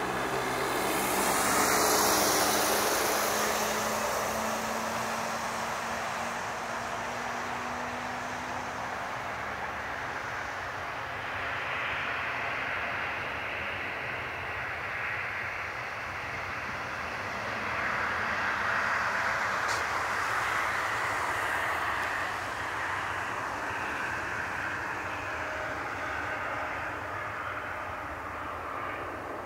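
Boeing 787-9's two GE GEnx-1B turbofans at takeoff power during the takeoff roll, a continuous jet roar with a hissing high end. It is loudest about two seconds in and swells again later.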